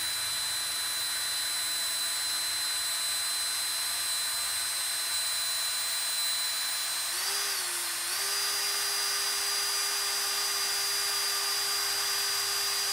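Cordless drill running steadily under load, drilling out a rusted screw head in a steel window pivot bar, with an even motor whine. About seven seconds in the pitch wavers briefly as the load changes, then settles slightly higher. The driller thinks his bit is getting dull.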